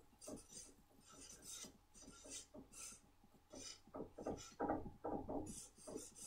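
Marker pen writing on a white easel board: a run of short rubbing strokes, louder and quicker in the last two seconds.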